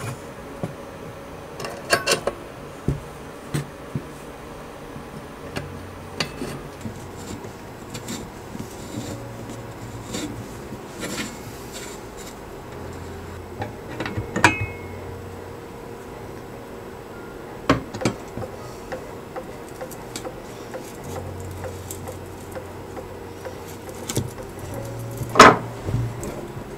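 Metal bicycle parts and a cup spanner clinking and knocking on a wooden workbench as a bottom bracket cup is threaded into a steel bike frame. The knocks are scattered and sharp, and the loudest comes near the end.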